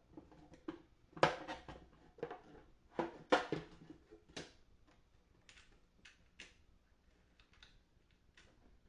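Light clicks and knocks of small parts being handled and set in place, the loudest about a second in and a pair around three seconds in, followed by fainter scattered ticks.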